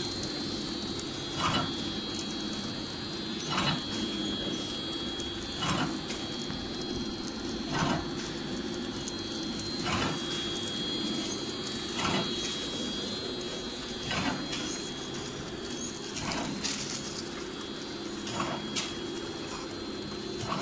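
Automatic play dough flow-wrapping machine running: a steady mechanical hum with a short, sharp clack repeating evenly about every two seconds, one for each packing cycle.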